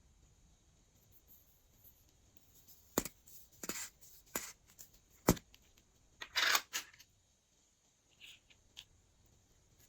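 Close-up handling sounds in a slime-making session: two sharp clicks and several short rustling, crinkling scrapes between about three and seven seconds in, then a couple of faint ticks.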